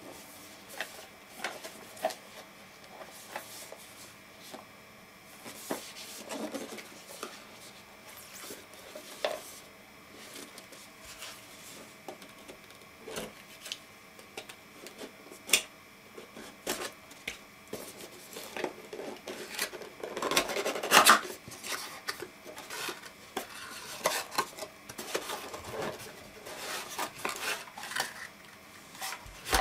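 Cardboard CPU retail box being handled and opened by gloved hands: scattered taps and clicks, a utility knife slicing the box seal, and flaps and the inner tray scraping and rustling, with a longer, louder stretch about two-thirds of the way in.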